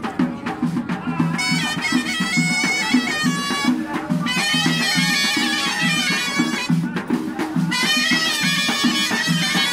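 Moroccan ghaita (double-reed shawm) playing a loud, nasal, ornamented melody in phrases, starting about a second in and breaking off briefly twice, over a drum beating a steady rhythm.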